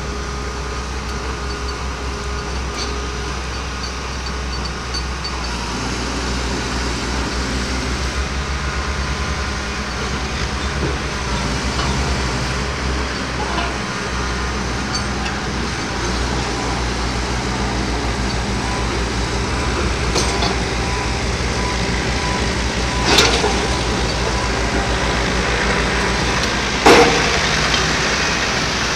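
Piling rig's diesel engine running steadily as the rig hoists a square precast concrete pile up to the leader. Two sharp knocks come near the end, about four seconds apart, the second the loudest.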